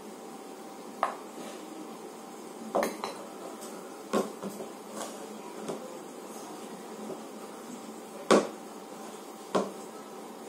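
Stainless steel bowls clinking and knocking, about six sharp knocks with a short ring, while flour is added and dough is kneaded by hand in a steel bowl. The loudest knock comes about eight seconds in.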